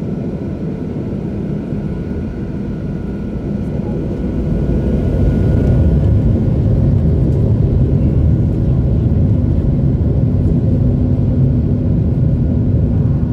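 Cabin noise of a Boeing 737-800 taxiing: the CFM56-7B engines and rolling airframe make a steady low rumble with a faint high engine whine. The rumble grows louder about four to five seconds in, and a steady hum joins it.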